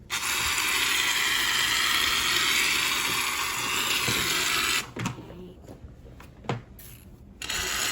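A steady, loud hiss lasting about five seconds that starts and stops abruptly, followed by a second short burst near the end.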